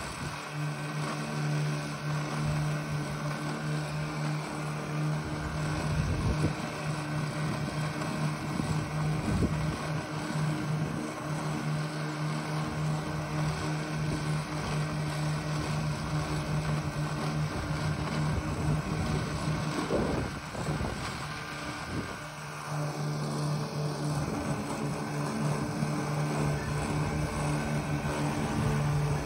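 Remote-controlled electric-drive lawn mower with a rotary mower deck, running across a lawn with a steady low hum. The hum drops out for about two seconds about two-thirds of the way through, then comes back.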